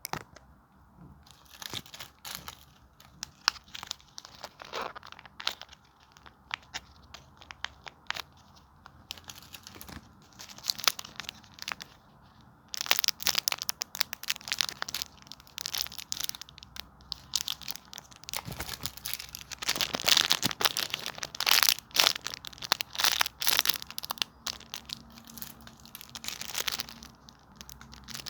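Homemade paper-and-tape squishies being squeezed and handled, crinkling and crackling irregularly. The crinkling gets busier and louder about halfway through.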